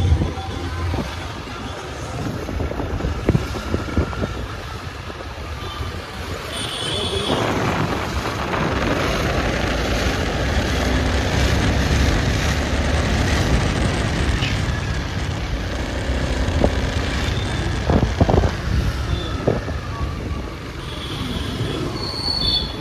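Motorcycle running on the move, with wind buffeting the microphone; the rush grows louder about seven seconds in.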